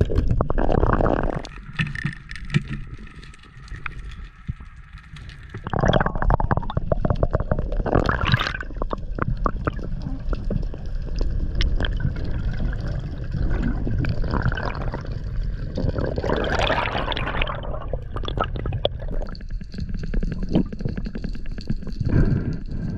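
Underwater sound picked up through a camera's waterproof housing: a steady low rumble of water noise, with several louder gurgling, bubbling surges of moving water.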